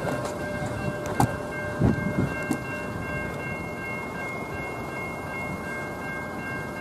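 Railway level-crossing warning bells ringing steadily, over wind noise and a few handling thumps on the microphone in the first couple of seconds.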